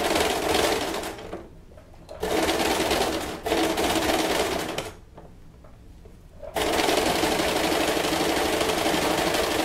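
Domestic electric sewing machine stitching elastic onto the base of a bra. It runs in three steady stretches with short stops between them, as the fabric is guided and repositioned.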